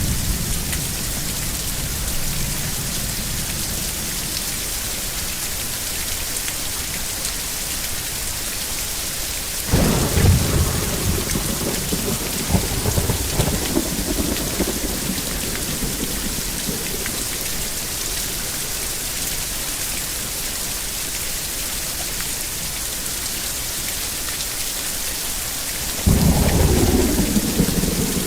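Steady heavy rain hissing throughout. Thunder breaks suddenly about ten seconds in and rumbles on for several seconds, and a second peal breaks near the end.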